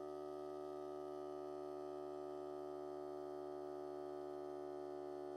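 Ryobi cordless air compressor running steadily: a constant, fairly quiet motor-and-pump hum with many overtones.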